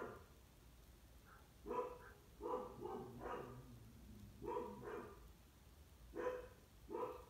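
A puppy barking: about eight short barks, some in quick pairs, to wake its owner.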